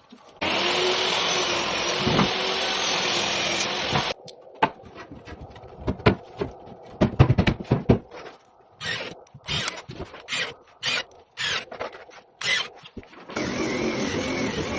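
A power tool runs steadily for about four seconds. Then come irregular knocks and taps on wooden floorboards for about nine seconds, and a machine starts running again near the end.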